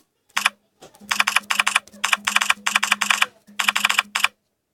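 Rapid key-tap clicks from a smartphone keyboard app's typing sounds, in several quick runs separated by short pauses, with a low hum under each run.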